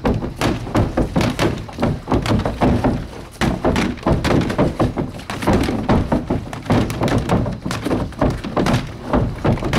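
Gloved punches hitting a freestanding punching dummy with a man-shaped torso, thudding in quick combinations of about two to three strikes a second.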